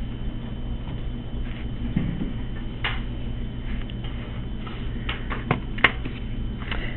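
A few faint taps and scrapes from hands and a sculpting tool working clay on a board, mostly in the second half, over a steady low hum.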